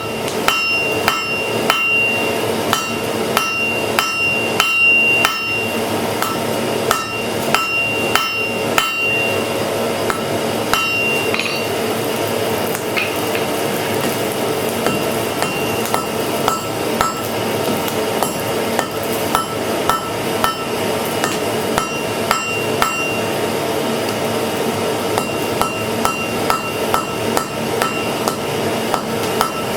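Hand hammer striking hot iron on an anvil, about two blows a second with a bright metallic ring after each, over a steady low hum.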